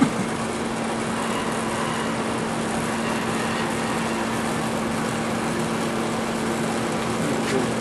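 Brazing torch flame hissing steadily as it heats a copper tube while brazing rod is fed in to build filler up over a hole.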